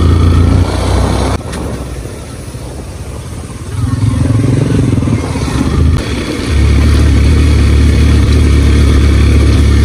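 Motorcycle engine running while riding; it drops back for a couple of seconds about a second in, then picks up again and runs steadily.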